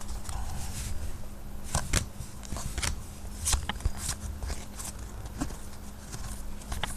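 Football trading cards flipped one after another off a stack, giving an irregular run of short flicks and slaps of card stock, about one or two a second, over a faint steady hum.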